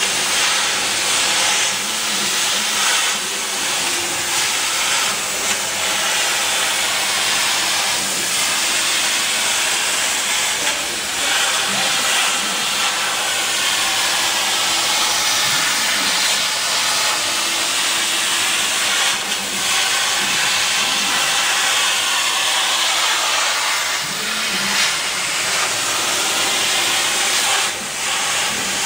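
CO2 laser cutter cutting fabric: a steady hiss of blowing air, with a faint motor whine that shifts in pitch as the cutting head moves.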